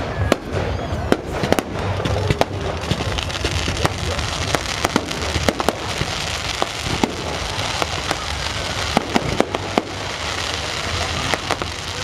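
Fireworks display: aerial shells bursting, a rapid irregular series of sharp bangs and crackling pops over a continuous background rumble.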